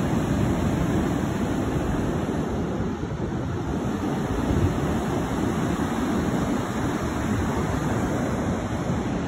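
Ocean surf breaking and washing up a sandy beach in a steady rush, mixed with wind rumbling on the phone's microphone.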